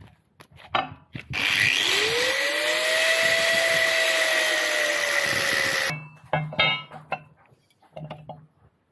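Angle grinder spinning up about a second in and cutting through a 15 mm by 60 mm flat steel bar: a steady whine over cutting hiss, its pitch sinking slightly as the disc bites, for about four and a half seconds before it stops suddenly. A few short knocks follow.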